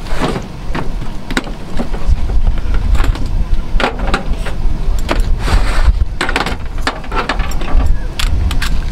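Clatter and sharp knocks of a plastic storage tote and its lid being handled and a coiled air hose being pulled out, over a steady low rumble.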